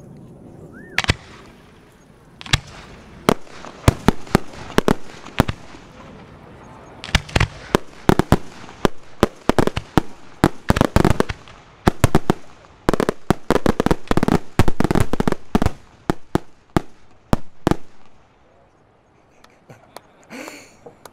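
Professional fireworks display: aerial shells bursting with sharp bangs. A few scattered bangs at first, then a rapid barrage through the middle, thinning out and falling quiet near the end.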